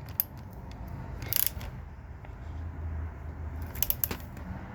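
A few short metallic clicks of a socket ratchet tightening engine mount nuts: a couple of single clicks, then a short run of clicks near the end, over a low steady hum.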